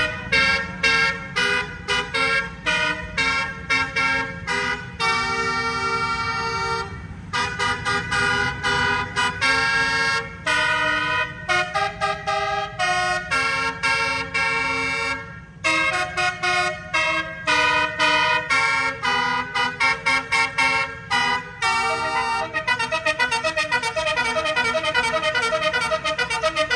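Indonesian bus 'telolet basuri' multi-note musical air horn playing a tune of short notes that jump between pitches, over a low rumble. Near the end it plays a fast run of rapid notes.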